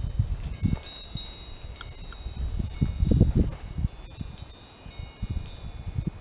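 Wind chimes ringing, several clear high tones struck again every second or so and dying away slowly, over gusts of wind rumbling on the microphone.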